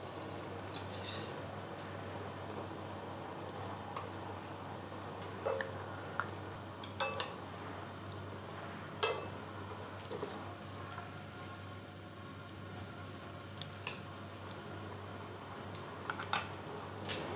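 Scattered clicks and taps of wooden chopsticks and utensils against a stainless steel pot over a steady hiss of hot water, as kale leaves are blanched and moved into cold water.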